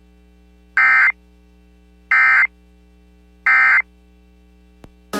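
Emergency Alert System end-of-message data tones: three identical short, harsh digital bursts about a second and a half apart, marking the end of the alert. A steady low mains hum runs underneath.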